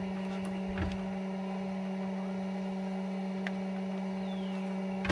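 A steady electrical hum with a low buzz and overtones, with a few light clicks and taps as hands handle the depth finder's parts and wiring at an aluminum boat's console, and a sharper knock at the very end.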